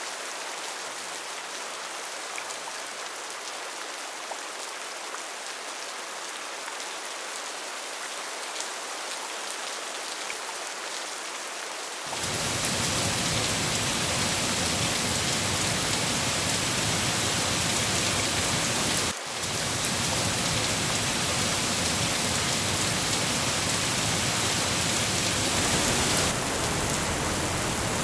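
Steady rain falling, a soft even hiss that about twelve seconds in switches abruptly to louder, fuller rain with more low rumble, broken by a momentary dip a few seconds later.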